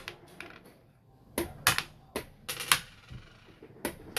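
Sharp clicks and clacks of xiangqi pieces being set down and picked up on a wooden board, about ten in all, irregularly spaced, with the loudest a little under two seconds and near three seconds in.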